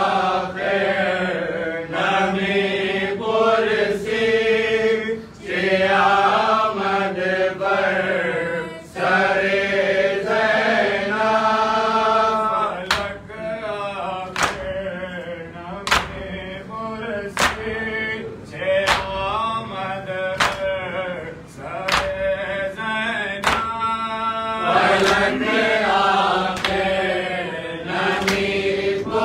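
Men chanting a Farsi noha, a mourning lament, in a steady sung recitation. In the second half, sharp chest-beating slaps of two-handed matam land together about every second and a half, keeping time with the chant.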